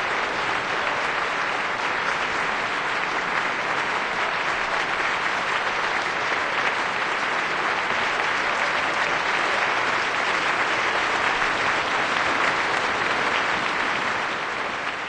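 Steady, dense crackling noise with no tone or voice in it, fading out near the end.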